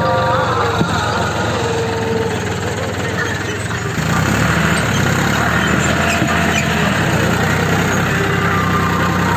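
John Deere 5310 tractor's three-cylinder diesel engine running hard under heavy draft load while pulling a tillage implement. The engine note changes about four seconds in.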